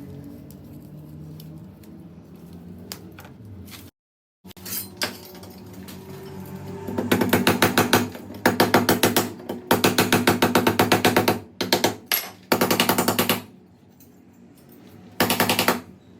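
Factory machinery: a steady low machine hum, then several bursts of very rapid, even rattling clatter lasting one to two seconds each, the last short burst near the end.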